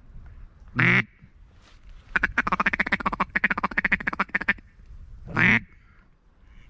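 Mallard-style quacking: one loud drawn-out quack about a second in, a fast run of short clucking quacks for about two and a half seconds, then another single loud quack near the end.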